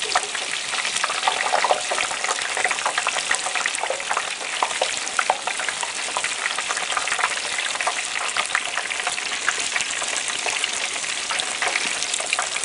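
A whole turkey deep-frying in a pot of hot cooking oil: steady, dense sizzling with many small crackling pops as water from the bird boils off in the oil.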